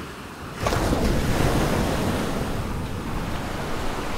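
Sea surf breaking and washing up a sandy beach, with wind buffeting the microphone. The surf gets suddenly louder a little under a second in, then keeps up steadily.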